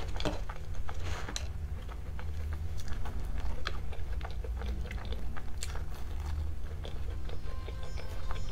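Biting and chewing crisp-topped choux pastry close to the microphone, with many small sharp crackles of the crust, over a steady low hum.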